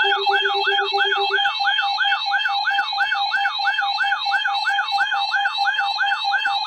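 Weather alert radio alarm: a loud, fast siren-like yelp that sweeps up and down about three times a second over steady tones, sounding ahead of a severe thunderstorm warning. A lower steady tone underneath stops about a second and a half in.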